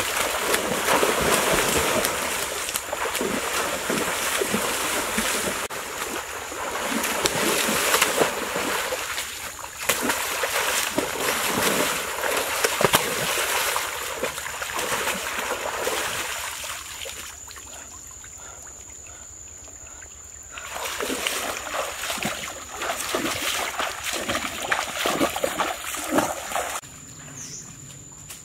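Heavy water splashing and sloshing as a person wades and thrashes through a shallow stream, grabbing at something in the water. It eases off about two-thirds through, then starts again before dying down near the end.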